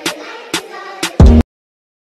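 Music with sharp drum hits about every half second, cut off abruptly about one and a half seconds in, followed by dead silence.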